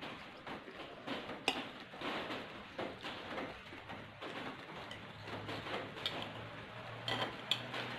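Eating sounds: chewing and small mouth noises, with light irregular clicks of a spoon and chopsticks against a plate, and one sharper click about a second and a half in.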